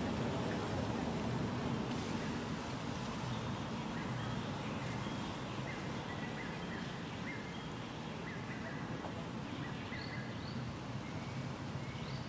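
Steady outdoor background rumble, with a series of short, high whistled bird notes starting about four seconds in.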